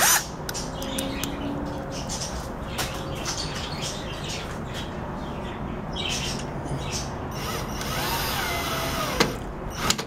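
Power drill with a screwdriver bit driving screws into a microwave oven's plastic front-panel housing. Its motor changes speed about eight seconds in, and the run ends with a click.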